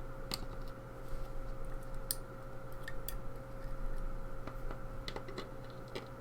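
Scattered light metallic clicks and ticks of small tools picking at a disassembled pin-tumbler lock, working its pin springs out, over a steady low hum.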